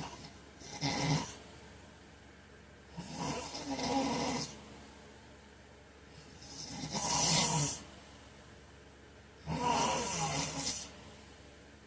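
A sleeping man snoring: four loud snores, about one every three seconds, with quieter breathing gaps between them.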